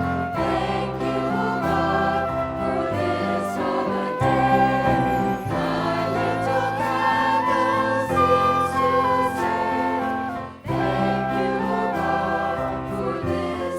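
Worship music: a choir of voices singing with instrumental accompaniment and a low sustained bass, briefly dropping away about ten and a half seconds in before resuming.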